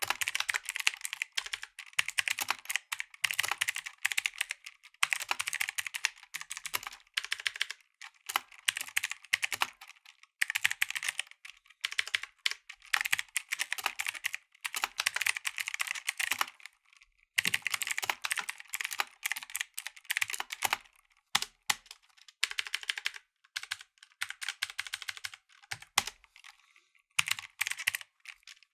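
Typing on a mechanical keyboard with blue switches: fast runs of sharp, high clicks in bursts of a few seconds, broken by short pauses.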